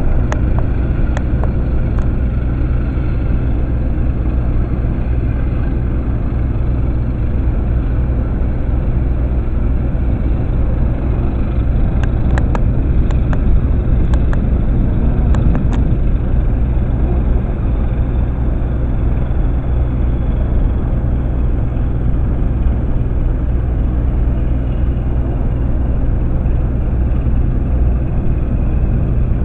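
Steady low engine drone that holds an even pitch throughout, with a few faint clicks a little under halfway through.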